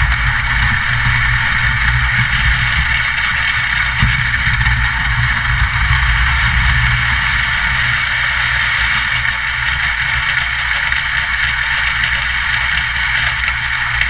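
Concrete pump truck running steadily while it pumps concrete through the boom hose, a loud, even machine noise with a deep rumble under it.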